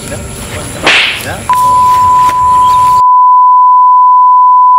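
A sharp whack sound effect about a second in, followed by a steady, loud, high-pitched electronic beep like a censor bleep, which starts a moment later and holds without a break.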